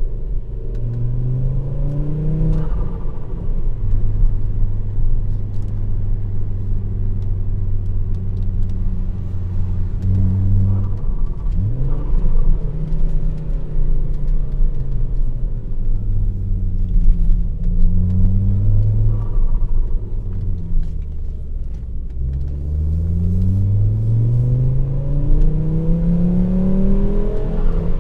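Straight-piped Volvo S60 2.0T's turbocharged engine, exhaust with no catalytic converter and two straight-through mufflers, pulling through the gears: the revs climb, drop at each shift and climb again several times, with a long climb near the end.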